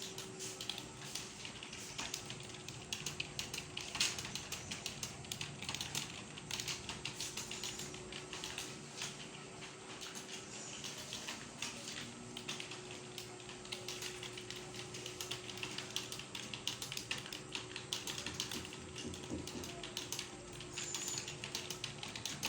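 Several computer keyboards being typed on at once during a timed typing test: a continuous clatter of many overlapping key clicks.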